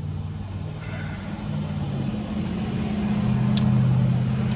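A motor vehicle's engine running with a low hum that shifts pitch a few times, growing louder to a peak near the end and then easing off, as if passing by.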